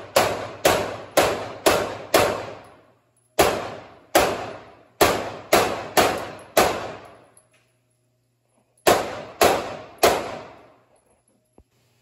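Semi-automatic pistol shots echoing in an indoor range, fired in strings about half a second apart: about five shots, a short pause, about seven more, a longer pause, then three.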